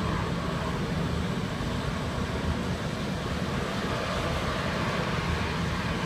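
Rice husk powder biomass burner running, its flame and blower making a steady rushing noise, strongest in the low end.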